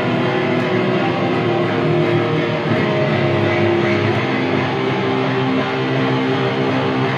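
Live band playing loud and steady, electric guitar holding sustained chords over the band.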